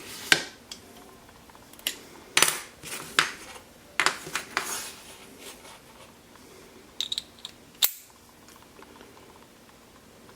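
Steel screwdriver bits clicking and clinking as they are handled and fitted into a multi-bit screwdriver. Separate light clicks, several in the first five seconds and a last pair about seven to eight seconds in.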